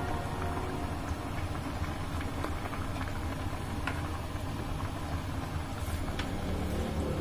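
Vegetable broth boiling hard in an enamelled cast-iron pot, a steady low bubbling rumble, with a few light knocks of a ladle stirring it.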